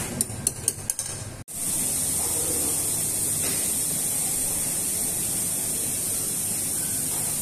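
A few sharp clicks, then after an abrupt cut a steady, loud hiss with no rhythm, like running water or sizzling.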